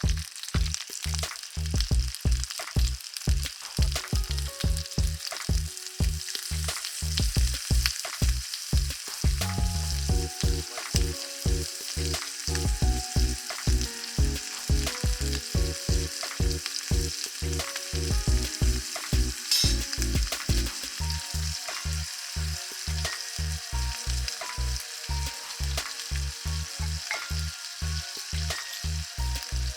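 Garlic shrimp sizzling in hot oil in a pan over a campfire, a steady hiss, under background music with a steady low beat and a melody.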